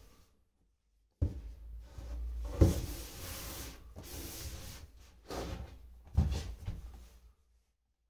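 Handling sounds: a sharp knock about a second in, then a louder thump. A few seconds of rubbing and sliding follow, and two more knocks come near the end.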